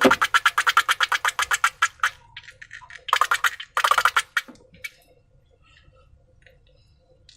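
Slime being worked by hand, making rapid, regular clicking and popping at about nine clicks a second that stops about two seconds in. Two more short runs of clicks come around three and four seconds in, then only faint scattered clicks.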